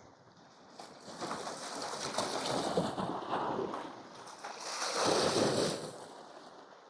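Sea waves washing against shore rocks, two swells rising and falling, the second the loudest about five seconds in.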